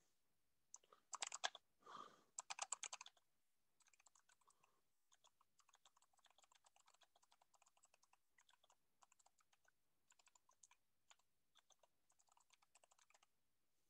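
Faint computer keyboard typing: a steady run of quick keystrokes, with a few louder key taps in the first three seconds.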